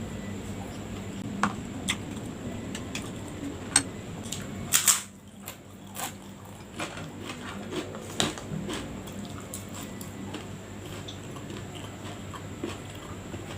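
Close-up eating sounds: chewing with scattered sharp clinks of a spoon against a plate, the loudest cluster about five seconds in.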